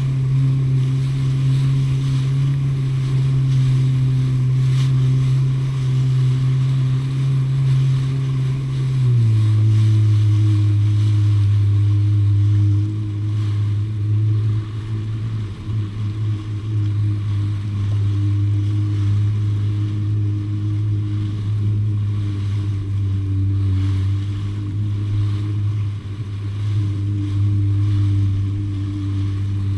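Personal watercraft (jet ski) engine running steadily under way, its pitch dropping a step about nine seconds in as the throttle eases, with the rush of spray and wind over it.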